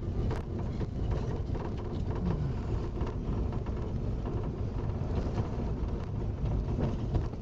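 Steady low rumble of a car, heard from inside the cabin, with hands knocking and rubbing against the camera's microphone.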